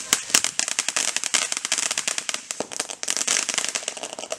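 Consumer firework crackling: a dense, irregular run of sharp pops, many a second, that cuts off suddenly near the end.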